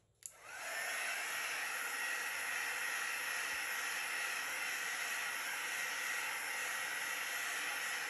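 Handheld craft heat tool switched on: its fan spins up within the first half-second, then blows steadily with a high whine.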